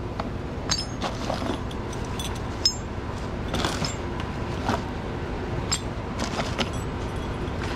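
Metal buckles and adjusters on racing-harness straps clinking and knocking together as the straps are handled and taken out of a cardboard box. A run of light metallic clicks, with one sharper click about three seconds in.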